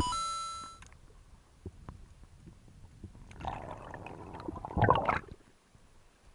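Metallic ringing of a speargun underwater just after its shot, dying away within the first second. Then water rushing and bubbling as the diver rises and breaks the surface, loudest about five seconds in.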